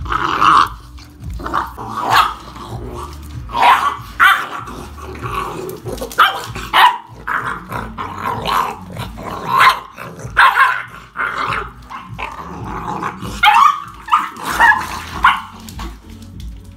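American pit bull terrier puppies growling and barking in short, loud bursts about once a second while they eat raw minced meat together, the sound of puppies guarding and squabbling over food.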